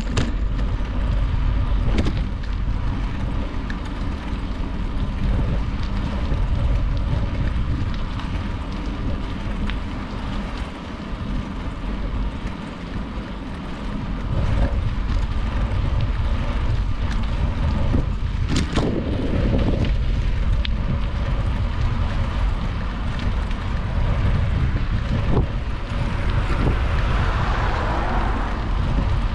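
Wind rumbling on a GoPro Hero 8's microphone while cycling, a steady low buffeting with a few sharp clicks, one about two seconds in and another just past the middle. A swell of hiss rises near the end.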